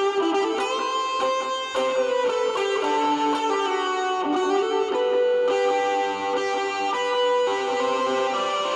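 Electric guitar played through distortion and overdrive with hall reverb and delay, playing sustained, ringing lead notes that shift from one pitch to the next every second or so.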